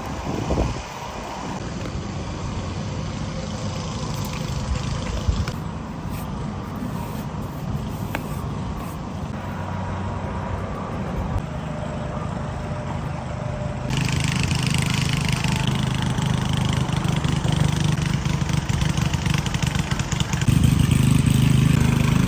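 Garden tiller's small petrol engine running steadily, getting louder and busier about two-thirds of the way through and again near the end as it works harder.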